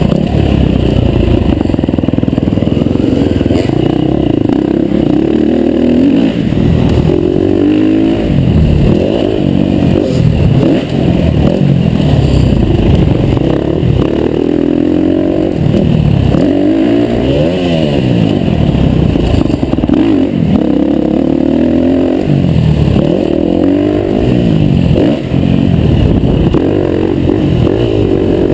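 KTM 350 four-stroke single-cylinder dirt bike engine revving hard, its pitch climbing and dropping over and over as the rider opens and chops the throttle through the turns.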